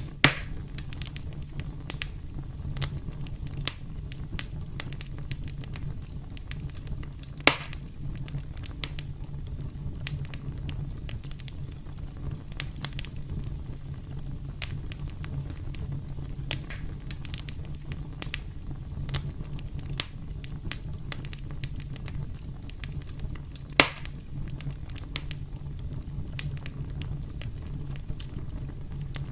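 Campfire burning with a steady low rumble and constant light crackling, broken by three loud sharp pops: one right at the start, one about seven seconds in and one near the end.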